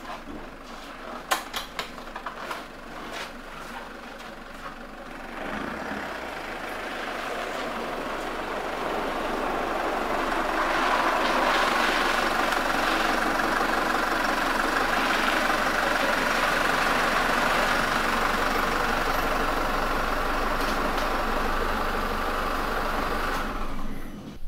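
Car engine running as the car drives in and idles, its sound growing from about five seconds in, holding steady, then stopping near the end. A few knocks come in the first few seconds.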